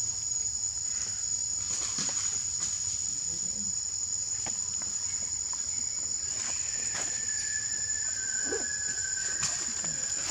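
Insects droning: a steady high-pitched buzz throughout, with scattered faint clicks and rustles.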